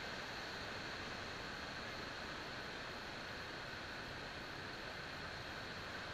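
Faint, steady hiss of background noise with no distinct events and no rotor whine.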